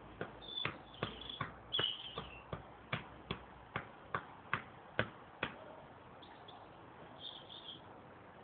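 A football being juggled: a steady run of sharp touches on the ball, about three a second, that stops about five and a half seconds in.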